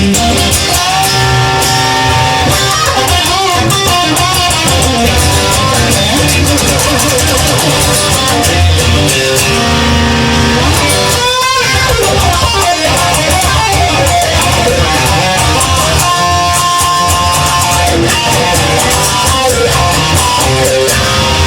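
Instrumental break of a rock song: guitar playing held notes over a steady bass and beat, with a quick wavering pitch sweep about halfway through.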